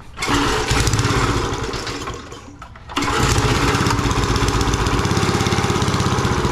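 Garden tiller's small gasoline engine starting and running for about two seconds, then dying down, then catching again about three seconds in and running steadily with a fast, even firing pulse.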